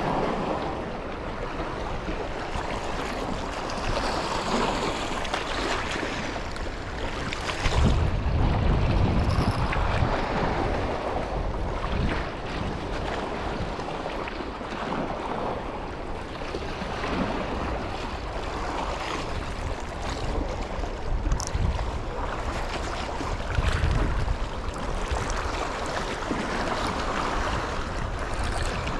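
Steady rushing of fast-flowing river water, with wind buffeting the microphone in gusts now and then, strongest about eight seconds in.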